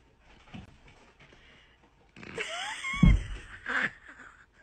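Things knocked flying by a cat: a heavy thud about three seconds in, with a short clatter after it. A rising, cry-like voice sounds over the thud.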